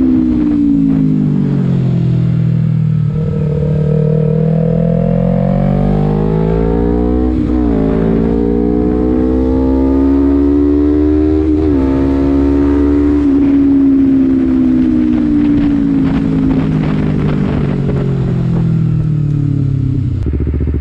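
Honda CBR250RR parallel-twin engine running through an Akrapovič header and Arrow muffler while being ridden. The revs fall as it slows, then climb through two upshifts about seven and twelve seconds in, hold steady, and fall again near the end.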